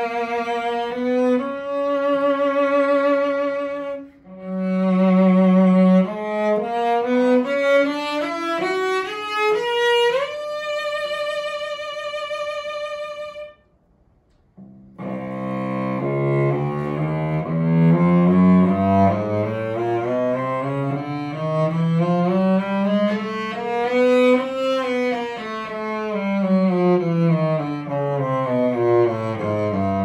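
Old English cello in the Grand Amati pattern, strung with Larsen strings, played solo with the bow and vibrato. It holds low notes, then runs up to a long high note, stops briefly, and plays a long passage that climbs and comes back down.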